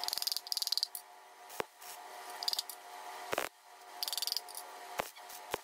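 Arc welder laying short tack welds on a metal intake pipe: four brief buzzing, crackling bursts, with a few sharp clicks between them.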